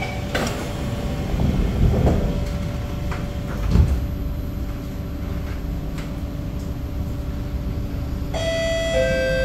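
C751B metro train's sliding doors shutting with a thump, then the train pulling away with a steady hum and a held tone. Near the end a two-note chime sounds, stepping down in pitch.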